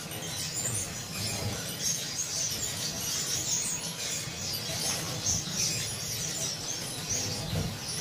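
Young parrot finches chirping in a cage: many short, high, thin calls overlapping at an irregular pace.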